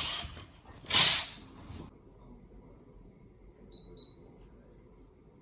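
Two loud swishing rushes of noise about a second apart, then two short high beeps about four seconds in from a Tanita digital body scale as it settles on the weight reading.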